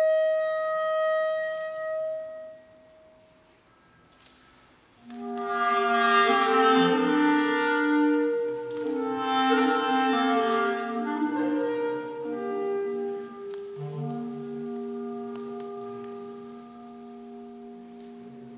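Clarinet playing a slow melodic interlude. A held note fades out, there is a short pause, and then a phrase of moving notes follows. It ends on a long, low sustained note that slowly fades.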